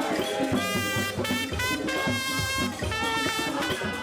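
Background music: an upbeat track with a steady drum beat under held synth-like notes.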